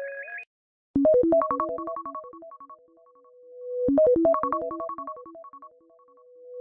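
An iOS 17 iPhone ringtone: a quick melody of bright keyboard-like notes, played twice about three seconds apart. Each time the melody trails off into a held note.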